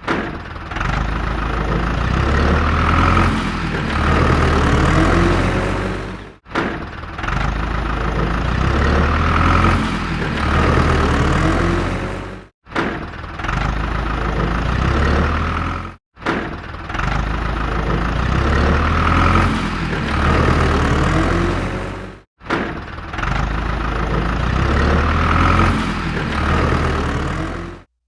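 Small motor of a homemade mini tractor model running steadily, heard in several clips joined with sudden cuts.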